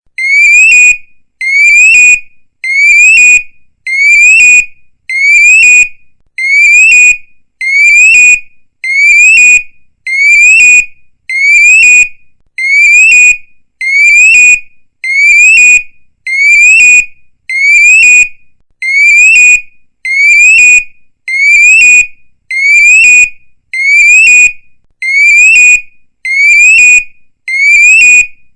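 Electronic police siren in a short whoop pattern: a quick rising sweep held briefly and cut off, repeated steadily about every second and a half.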